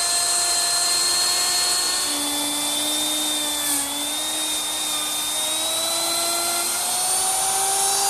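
Router with a ball-bearing-guided carbide laminate trimming bit running at speed, cutting the overhanging high-pressure laminate flush with the edge of a particle-board top. A steady high-pitched whine whose pitch drifts slightly as the cutter loads, sagging briefly about four seconds in.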